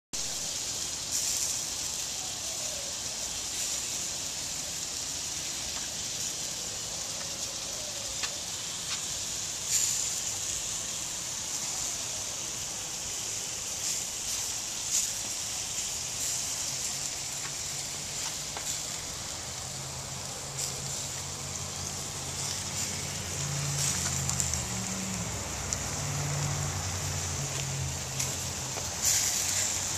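Tri-tip sizzling on a charcoal grill: a steady hiss of fat and juices on the hot grate, broken by occasional sharp pops and crackles.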